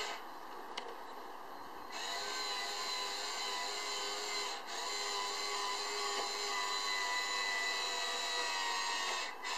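Small electric motor of a model tipper truck's tipping ram whining steadily as it drives the aluminium tipper body down. It is quieter for the first couple of seconds and drops out briefly about halfway through and again near the end.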